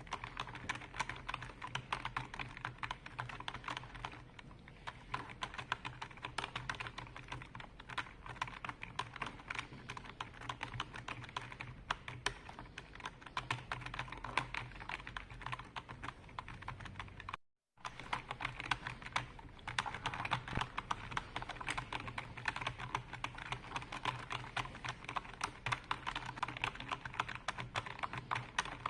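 Continuous fast typing on a computer keyboard: a dense, irregular stream of key clicks. The sound cuts out completely for a fraction of a second a little past halfway, then resumes.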